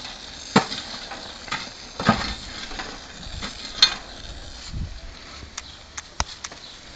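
Beer can heating on barbecue coals, sizzling with a steady hiss and irregular sharp crackles and pops about once a second, as pressure builds inside the can.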